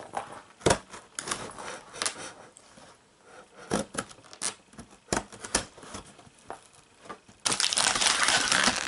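A knife slicing along the packing tape of a cardboard box in short scraping strokes and clicks. About seven and a half seconds in, the flaps are pulled open: a louder stretch of tape tearing and cardboard rustling.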